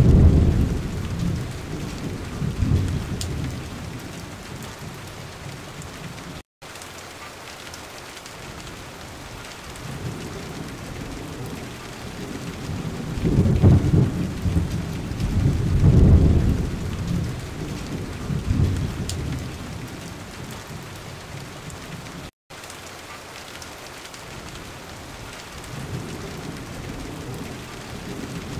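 Steady rain with deep thunder rumbles that swell and fade several times, loudest near the start, in the middle and at the end. The sound cuts out completely twice for a split second.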